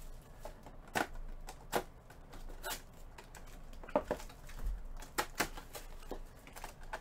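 Sealed cardboard boxes of trading cards being picked up, tapped and set down on a table: a string of scattered sharp taps and knocks.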